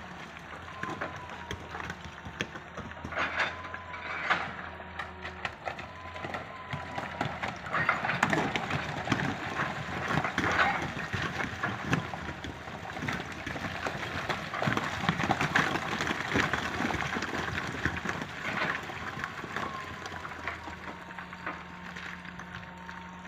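Hitachi EX200 excavator working: engine running with a thin hydraulic whine that rises and dips slightly, and repeated knocks and clatter as it digs.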